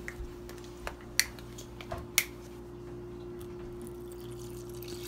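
A few short, sharp clicks and taps of a plastic bottle and kitchenware at a steel mixing bowl in the first couple of seconds. Then Gatorade is poured quietly into the dry cake mix, over a steady low hum.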